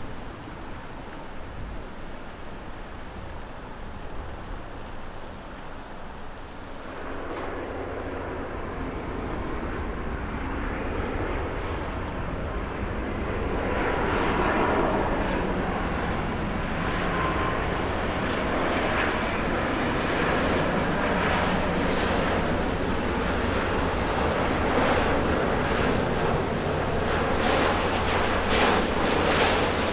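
Japan Airlines Airbus A350-900's Rolls-Royce Trent XWB engines on final approach with gear down. The jet noise steps up about a quarter of the way in, swells as the airliner nears, then holds loud and steady. Before that there is only a fainter rumble.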